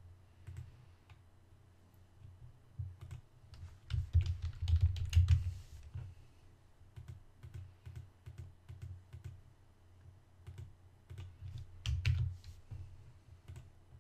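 Computer keyboard typing in irregular bursts of keystrokes, busiest about four to five and a half seconds in and again around twelve seconds.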